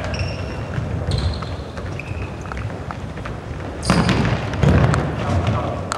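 Futsal play in a sports hall: a ball being kicked and thudding on the wooden floor, with short sneaker squeaks. About four seconds in comes a loud ball strike, followed by a heavy thud.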